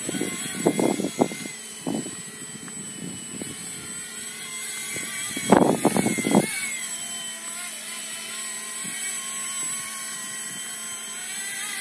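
Blade mSR X micro RC helicopter hovering and flying, its electric motor and rotor making a steady high-pitched whine. Two clusters of short, loud thumping bursts break in, one near the start and one about halfway through.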